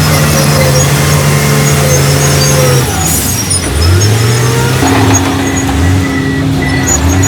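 Heavy construction machinery's diesel engine working, its pitch steady and then dropping about three seconds in, rising again shortly after and settling on a new steady note.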